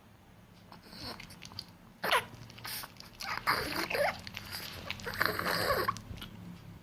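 Chihuahua eating: wet chewing and licking sounds in several bursts, the longest about three and five seconds in.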